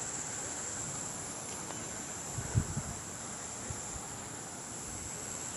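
Steady high-pitched insect chorus, with a couple of brief low bumps about two and a half seconds in.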